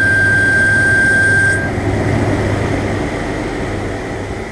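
Methods Slant 50 CNC turning lathe running a boring-bar roughing cut in a Delrin part, with a steady high whine over the machine noise. About a second and a half in the whine cuts off, and the machine noise then fades away gradually as the cycle ends.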